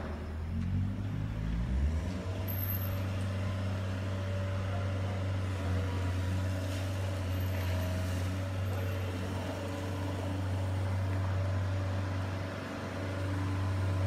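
Steady low engine drone at a constant pitch, like an engine idling.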